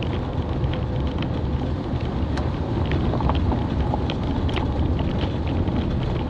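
A car driving on a gravel road at about 20 mph: a steady low rumble of tyre and road noise, with scattered sharp ticks of loose gravel against the car.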